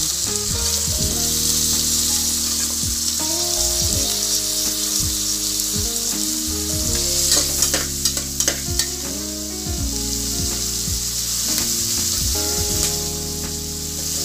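Chopped onions, carrots and green beans sizzling in hot oil and ghee in an aluminium pressure cooker as they are sautéed and stirred with a metal spatula, with a few sharp clicks of the spatula against the pot about halfway through.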